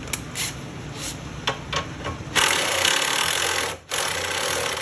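A few light tool clicks, then a power drill running a socket on a new shock absorber's mounting nut in two long spells with a short break between them, a loud rasping whir.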